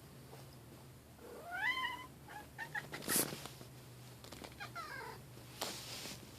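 Domestic cat making a raptor-like call: a rising squawk about a second in, then short chirping calls. A sharp noisy burst near the middle is the loudest moment.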